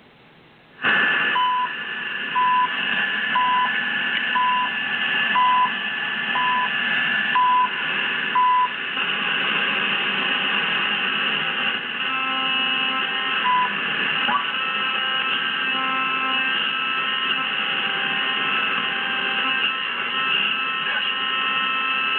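Zenith Y600 Trans-Oceanic tube radio on a shortwave band, coming on suddenly about a second in with steady static hiss and several thin whistling carrier tones. A short beep sounds about once a second through the first eight seconds or so.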